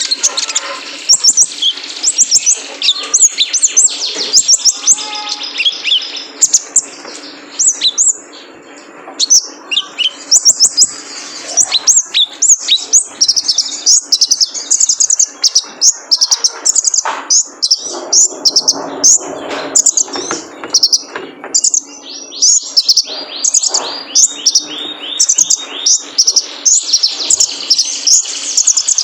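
Male kolibri ninja sunbird singing a fast, continuous run of high-pitched chirps and twittering trills, the full, energetic song used as lure song to get other sunbirds singing.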